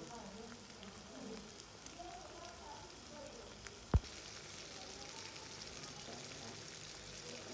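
Minced meat and green chillies frying in oil in a steel karahi wok, sizzling steadily. A single sharp knock comes about four seconds in, after which the sizzle is brighter and hissier, with chickpeas now in the pan.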